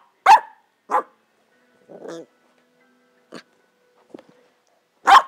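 Pembroke Welsh Corgi puppy barking in four short, sharp barks, the loudest about a third of a second in and just before the end, with a softer sound in between. It is demand barking at a toy it wants but can't reach.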